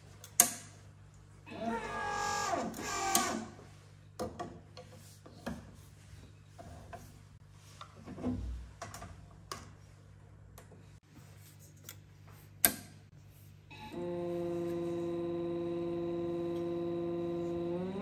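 Handling clicks and clatter as the portafilter is locked into the espresso machine's group head and the cup is set down, with a sharp click near the start and another knock late on. About fourteen seconds in, the Nook mini's gear pump starts with a steady, even-pitched hum as the shot begins.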